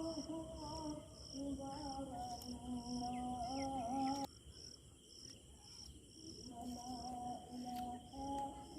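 A slow tune of long held notes hummed by a person, breaking off for a couple of seconds in the middle, over steady high insect chirping at about two chirps a second.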